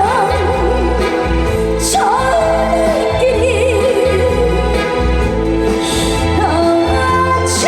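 Woman singing a trot song over loud backing music, holding long notes with a wide vibrato over a steady, pulsing bass.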